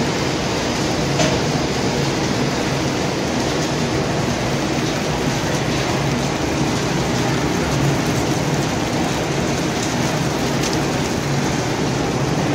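Industrial popcorn production line running: steady machinery noise from the hot-air popping equipment and conveyors, with a couple of light clicks.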